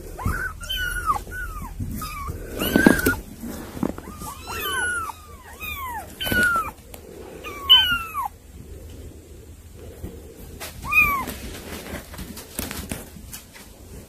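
Kittens mewing: many short, high-pitched mews that rise and fall, coming in quick runs of several with pauses between. Light knocks and scuffs come in between the mews.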